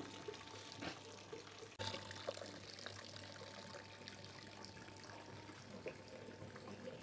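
Vinegar being poured into a container, a faint steady trickle of liquid that picks up slightly about two seconds in.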